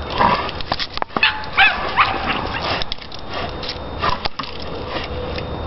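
Pit bull hanging by its jaws from a spring pole rope, giving a few short high whines and yips through its clenched teeth, with scattered sharp knocks and rustling as it braces and scrabbles against the tree.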